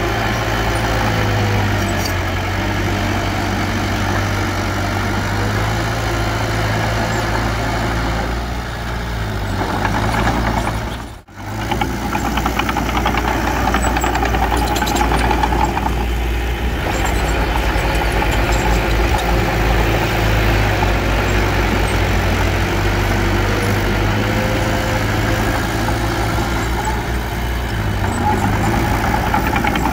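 Diesel engine of earthmoving machinery running steadily under work, with a deep hum; the sound drops out briefly about eleven seconds in.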